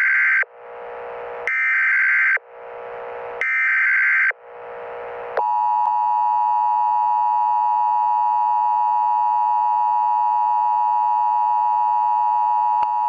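Emergency Alert System header: three short data bursts of about a second each, with hiss between them. About five seconds in comes the steady two-tone EAS attention signal, held for the rest of the time.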